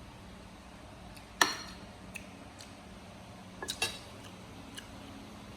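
Cutlery clinking against dishes during a meal: one sharp clink about a second and a half in, two quick clinks near the middle, and a few light ticks.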